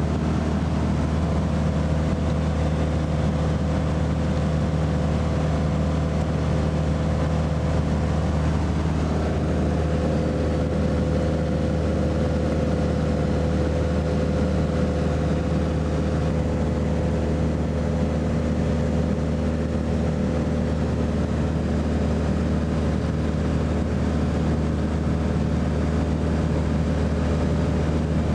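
Light aircraft's engine and propeller running steadily in cruise, a constant unchanging drone heard from inside the cabin.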